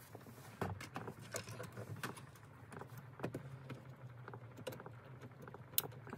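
Light, scattered plastic clicks and taps as hands handle the car's dashboard parts and the head unit's wiring plug in the opened dash, with one sharper click near the end. A faint low hum runs underneath.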